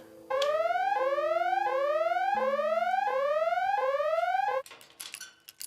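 Electronic alarm whooping: a rising tone repeated about every 0.7 seconds, about six times, then cut off suddenly, followed by a few short clicks.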